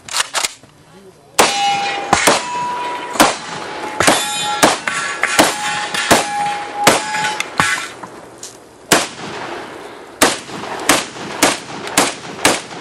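Rapid gunfire at steel targets, with many shots in quick succession. The struck steel plates ring with clear tones from about a second and a half in until around eight seconds in, and shooting continues toward the end.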